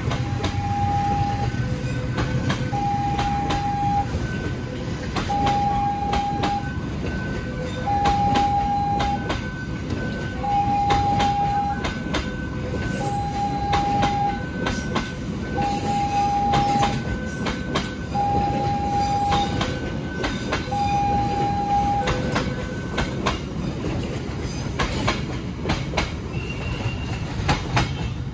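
Level-crossing warning alarm sounding a two-tone electronic signal about every two and a half seconds, which stops about 22 seconds in. A departing passenger train rolls past with its wheels clattering over the rail joints.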